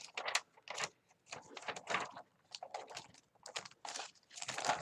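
Light, irregular clicks and knocks of the parts of a gaming keyboard being handled as it is taken apart.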